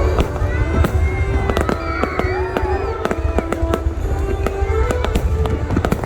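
Fireworks display: aerial shells bursting in a rapid string of bangs and crackles, with music playing underneath.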